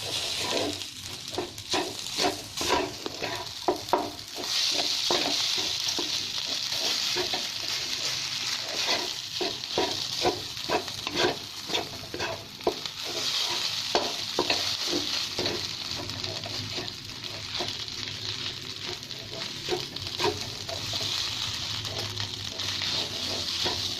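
Cooked rice stir-frying in a hot pan: a steady sizzle while a spatula stirs and scrapes it, with many quick clacks of the spatula against the pan. The sizzle grows louder about four seconds in.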